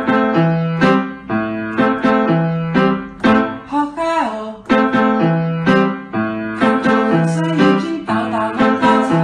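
Background music with a keyboard melody in regular notes over a bass line that steps from note to note.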